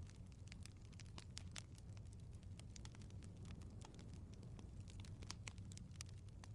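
Wood fire in a fireplace crackling softly: many small irregular pops and snaps over a low, steady rumble of the flames.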